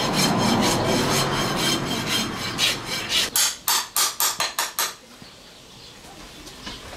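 Farrier's rasp filing the edge of a hoof pad fitted to a horseshoe, in repeated strokes. About three seconds in comes a quicker run of about eight strokes, and the rasping stops about five seconds in.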